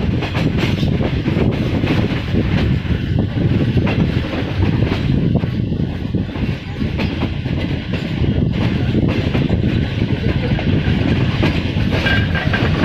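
Pakistan Railways passenger coaches running along the track, heard from an open coach window: a steady, loud rumble of wheels on rail with repeated clattering knocks as the wheels pass over rail joints.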